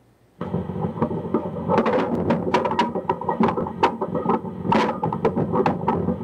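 Lo-fi experimental noise music from a cassette: a dense bed of layered steady tones and noise, cut through by many sharp, irregular clicks, starting abruptly about half a second in.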